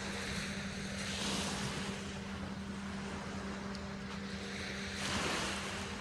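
Small waves washing onto a sandy beach, the wash swelling about a second in and again about five seconds in, over a steady low hum.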